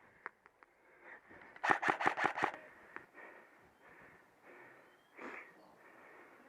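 Airsoft rifle firing a quick string of about five shots about a second and a half in, with one more softer snap near the end.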